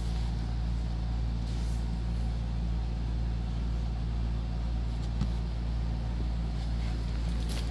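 A steady low hum runs throughout, with a few faint rustles and taps as a leather-bound Bible's cover and textured endpapers are handled.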